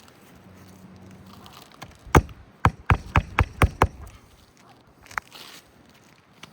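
Hammer driving roofing nails through an architectural asphalt shingle: seven quick strikes about two seconds in, then one lighter tap a second later.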